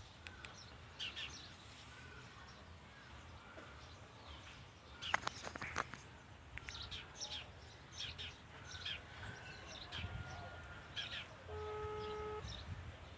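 Birds chirping, with two sharp knocks about five seconds in. Near the end, a single steady tone of under a second from a phone on loudspeaker: the ringing tone of an outgoing call.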